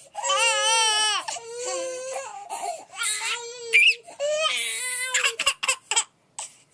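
A baby's high-pitched vocalizing: several long, wavering squeals and babbling cries in a row, followed by a few short clicks near the end.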